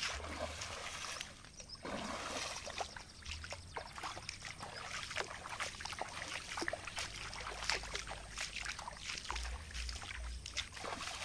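Footsteps wading through a shallow stream, with irregular splashes and sloshes of water at each step.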